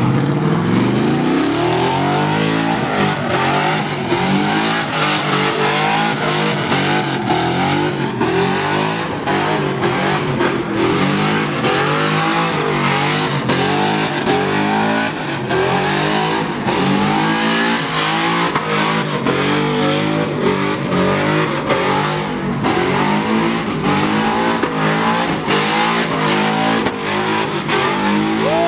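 Chevrolet Silverado pickup's 5.3-litre V8 revving hard during a burnout: it sweeps up at the start, then rises and falls about once a second as the rear tyres spin, with tyre squeal underneath.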